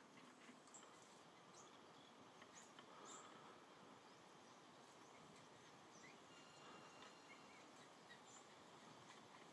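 Very faint natural ambience: a low steady hiss with scattered brief bird chirps and insect calls.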